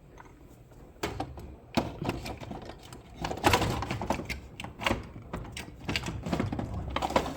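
Small antique sewing machine parts and accessories clattering and knocking as they are fitted back into their fold-up storage box: a run of irregular clicks and knocks that starts about a second in.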